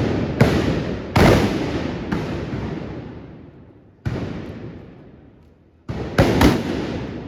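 Trabucs (Catalan blunderbusses) firing loud blank black-powder shots. About seven blasts come at uneven spacing, some singly and three in quick succession near the end, each trailing off in a long echo.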